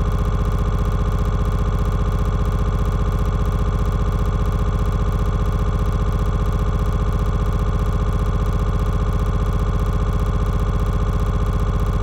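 Background music: a steady synthesizer drone of several held tones with a fast, even pulse, unchanging.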